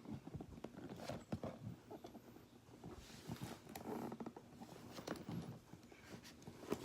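Faint, irregular small plastic clicks and taps from handling an action figure while its energy-beam accessory is pushed onto the hand.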